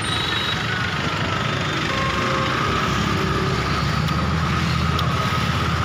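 An engine idling close by: a steady, evenly throbbing low rumble with a faint steady whine above it.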